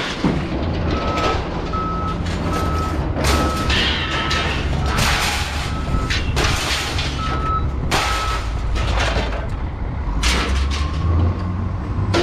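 A heavy vehicle's reversing alarm beeping about twice a second over a steady low engine rumble, stopping about three-quarters of the way through, with several loud bangs and clatters mixed in.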